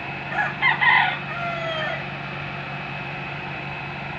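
A rooster crows once, starting about half a second in and ending in a drawn-out final note, over a steady mechanical hum.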